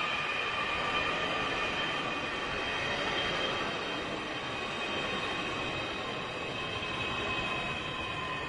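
Distant passenger jet coming in to land: a steady engine rush with several high whining tones that sink slowly in pitch.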